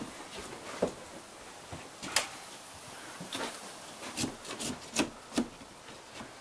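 Irregular knocks and scraping on wood around a window opening whose old window has been taken out. There are about seven sharp knocks, loudest about two seconds in and again about five seconds in.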